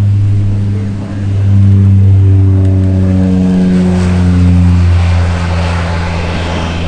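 HC-144 Ocean Sentry (CASA CN-235) twin turboprops at takeoff power as the aircraft rolls past and lifts off: a steady low propeller drone with a higher engine whine above it, loudest in the middle as it goes by and easing slightly near the end.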